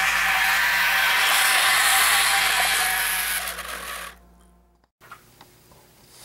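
HO scale model train running close by, a steady mechanical gear whine with wheel and track clatter, fading out about four seconds in. Faint clicks follow.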